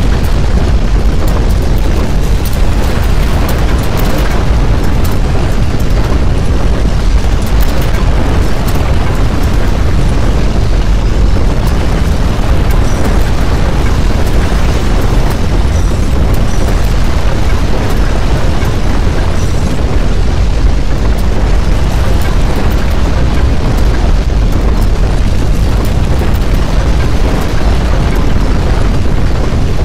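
Earthquake shaking sound effect: a loud, steady low rumble with a hiss on top, without letup.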